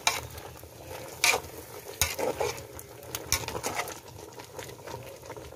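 A metal ladle stirring chunks of pork in a large metal pot, knocking and scraping against the pot several times at irregular moments. Under it the vinegar-based paksiw sauce is bubbling at a simmer.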